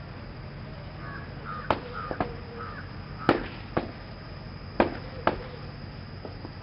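Sharp bangs in three pairs, the two of each pair about half a second apart and the pairs about a second and a half apart. Crows caw in the background between the first bangs.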